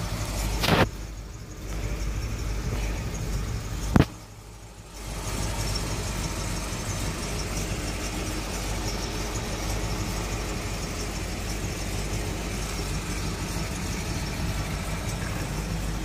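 Cadillac Fleetwood's V8 engine idling steadily. There are two sharp knocks, about a second in and about four seconds in, and after each the engine sound is muffled for a second or so.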